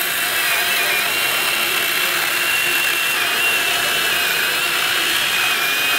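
Milwaukee M18 Fuel Hatchet 8-inch battery pruning saw, with a full-house chain, cutting through a dense oak log: a steady high electric whine with the chain rasping through the wood. The pitch dips a little at times as the saw loads up in the cut.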